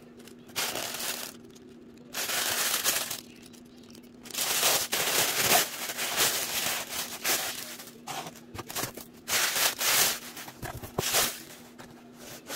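Tissue paper rustling and crinkling in repeated bursts as hands push through it and lift it aside.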